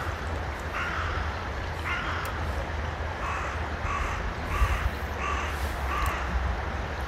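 A bird giving a series of about seven harsh, cawing calls, the later ones coming roughly one every two-thirds of a second, over a low wind rumble on the microphone.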